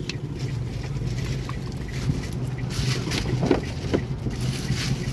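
A steady low mechanical hum, like a motor running, with cloth rustling close to the microphone in short bursts from about the middle onward.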